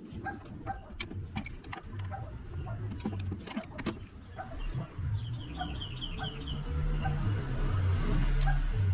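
Scattered clicks and knocks over a low rumble that grows louder near the end, with a quick run of about seven high bird chirps about five seconds in.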